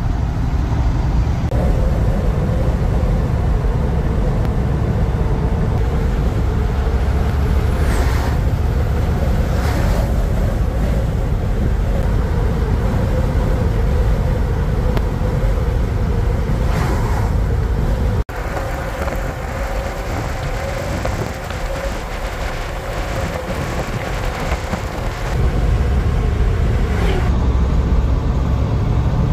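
Engine drone and road noise inside a semi-truck's cab while driving on the highway. It becomes quieter after a sudden cut a bit past halfway and louder again near the end.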